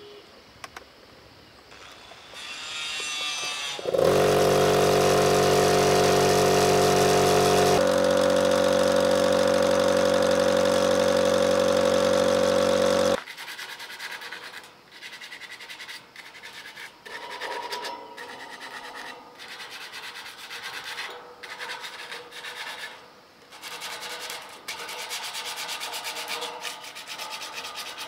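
A 1.5 HP piston air compressor's motor spins up with a rising whine and runs loud and steady for about nine seconds, then cuts off abruptly. After that comes hand sanding of an iron gate with sandpaper: repeated, uneven rubbing strokes on the metal bars.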